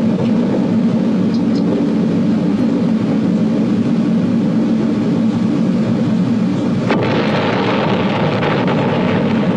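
A steady deep rumble, with a single sharp click about seven seconds in.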